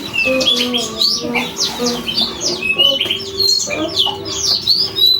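Canary singing, a fast run of chirps and sweeping whistled notes that the owner calls a strange voice. Lower short steady notes sound beneath it.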